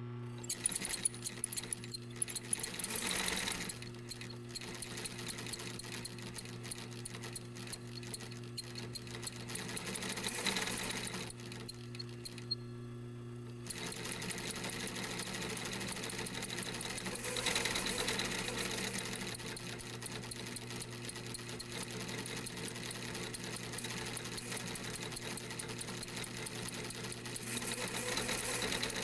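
Industrial sewing machine stitching in rapid, fast-repeating clicks over a steady motor hum. It starts and stops in short spells at first, pauses briefly about twelve seconds in, then sews continuously until it stops near the end.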